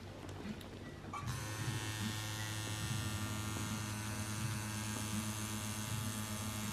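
Pen-style rotary tattoo machine switching on about a second in and then buzzing steadily as its needle works ink into skin.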